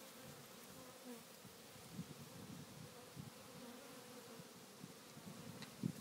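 African honey bee swarm clustered on the ground, buzzing faintly and steadily, with a few brief louder swells.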